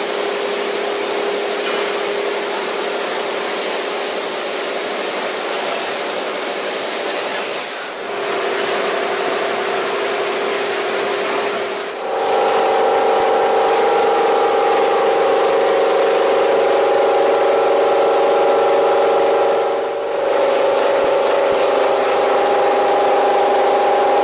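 Toilet-roll and kitchen-towel rewinding line running: a steady machine whir with a steady hum-like tone. The tone and level change abruptly three times, and higher steady tones join about halfway through.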